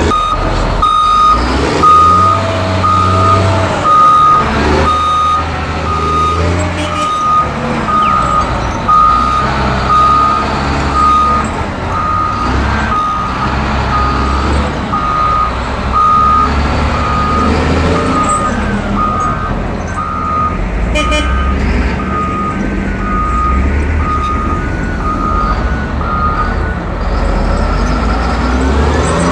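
Backup alarm beeping steadily, a little over one beep a second, over the low diesel running of heavy snow-clearing machines, with a Caterpillar 140M motor grader close by.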